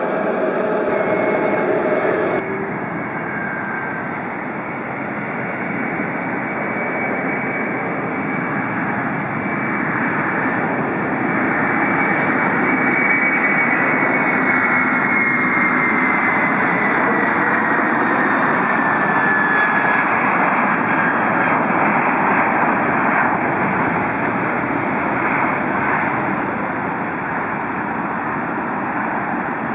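Jet airliner engines running loud and steady as the aircraft passes, with a whine that slowly falls in pitch about halfway through. A different sound with high steady tones cuts off abruptly about two seconds in.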